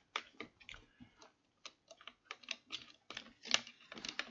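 Scattered light clicks and small knocks of a Festool Domino DF 700 joiner being handled: its plastic housing and fittings tapping and clicking under the hands. The machine is unplugged and not running.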